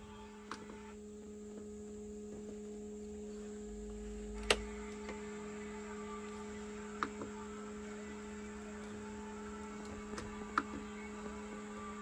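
Steady electrical hum in a school bus cab with the power on, the engine not yet running, broken by the clicks of dashboard rocker switches being pressed: one sharp click about four and a half seconds in, and lighter ones later.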